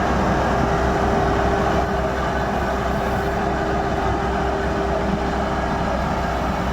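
Kubota DC-70 Plus combine harvester's diesel engine running steadily under load, a low rumble with one steady tone over it.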